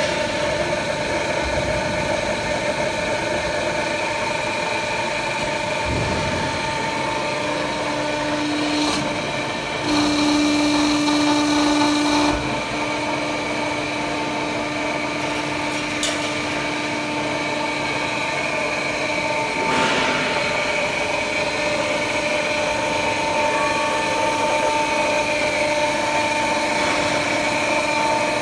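Pneumatic semi-automatic fence-mesh welding machine running: a steady machine hum with several held tones. It gets louder for about two and a half seconds near the middle, and a few sharp clicks and knocks come through.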